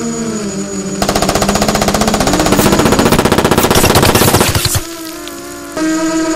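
Rapid automatic gunfire, a sustained machine-gun burst of about three and a half seconds, starting about a second in. Before and after the burst there are steady, slightly wavering droning tones.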